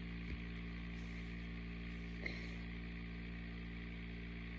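Steady low background hum with two faint ticks, one shortly after the start and one just over two seconds in.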